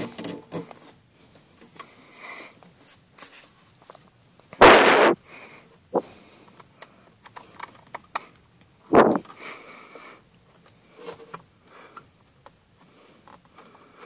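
Clicks, taps and rustles of hands working plastic wiring connectors and trim under a Volkswagen T5 Multivan's steering column, with two loud rustling bursts, one about five seconds in lasting half a second and a shorter one about nine seconds in.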